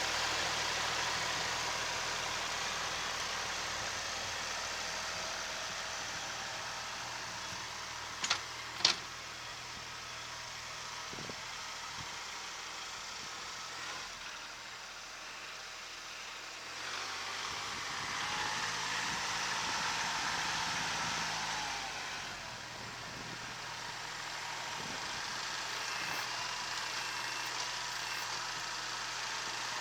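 Kubota SL28H tractor's diesel engine running steadily as it works a front loader. Two sharp clicks come about eight seconds in, and the engine grows louder for a few seconds about two-thirds of the way through.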